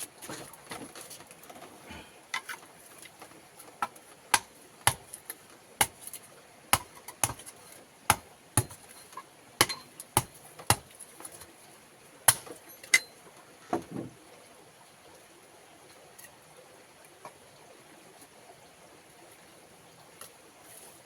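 A series of about a dozen sharp chopping knocks at a steady pace, one every half second or so, stopping about two thirds of the way through.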